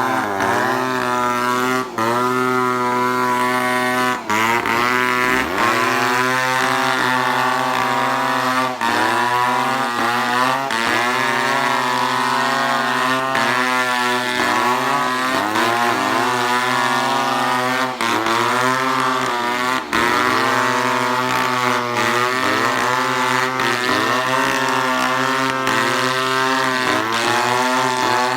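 Two-stroke chainsaw running at high revs while cutting wood. Its pitch sags and recovers every couple of seconds as the chain bites and frees, over a steady lower drone, with a few brief drops in loudness.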